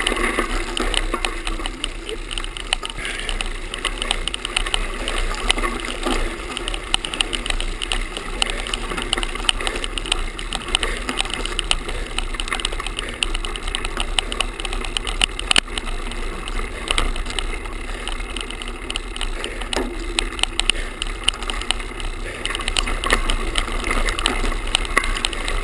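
GoPro camera tied onto the bicycle with a shoelace, rattling and vibrating against the bike as it rolls over a dirt and gravel path: a dense, continuous clatter of rapid ticks.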